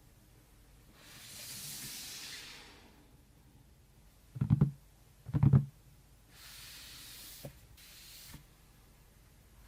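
Handling noises: two stretches of soft rustling and two loud, short thumps about a second apart near the middle, with a few light clicks after them.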